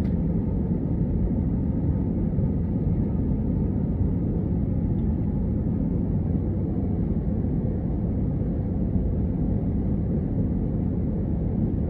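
Airbus A321 cabin noise shortly after takeoff: a steady low rumble of the jet engines and airflow around the fuselage.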